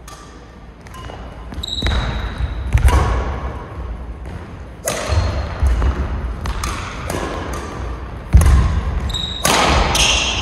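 Badminton being played: sharp racket hits on the shuttlecock at an irregular rally pace, mixed with heavy thuds of footsteps and landings on the court floor.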